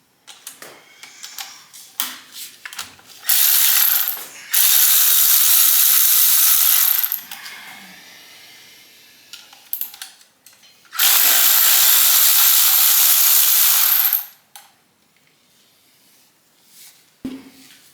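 A power tool runs in three long bursts of one to three seconds each while unfastening bolts on an engine being torn down. Between the bursts come scattered ratchet clicks and metal clinks of hand tools.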